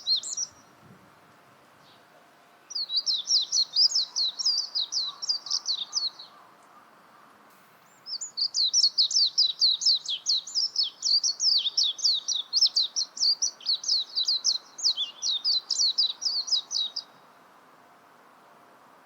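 Warbling white-eye (Japanese white-eye) singing in runs of rapid, high twittering: a short run ending just after the start, a second of about three seconds, and a long run of about nine seconds.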